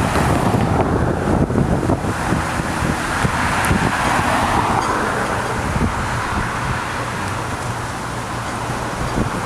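Road vehicle noise with wind: a steady low engine rumble, with a hiss that swells in the middle and fades, like a vehicle going by.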